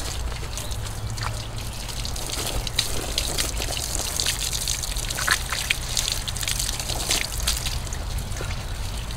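Water running from an open garden hose and splashing and spattering on painted wood siding and bricks as the cleaner is rinsed off. The splashing is steady, with many small irregular spatters.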